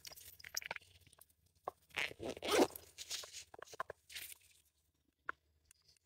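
Rustling and crunching of weeds and dry leaf litter as someone shifts through the plants beside a lying fawn, in irregular bursts with a few sharp crackles, busiest about two to three seconds in.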